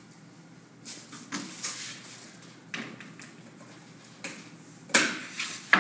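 A run of sharp knocks and clacks, about seven, irregularly spaced, the loudest two near the end.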